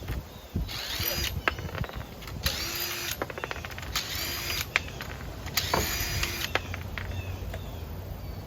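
Cordless power tool, an impact wrench or drill on lug nuts, run in four short bursts of under a second each, its motor whine rising and falling with each trigger pull while the wheels come off for the spacers.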